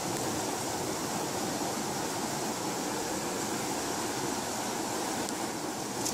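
Steady rush of water pouring out through a concrete dam's outflow gates, an even noise without breaks.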